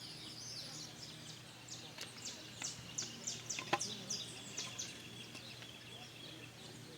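A songbird singing a rapid run of short, high notes that each sweep downward, thickest in the middle stretch, over a faint steady low hum. A single sharp click sounds a little past the middle.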